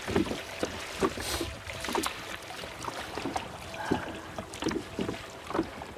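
Kayak paddles dipping and splashing in calm lake water, with irregular short splashes about twice a second and a light wind hiss on the microphone.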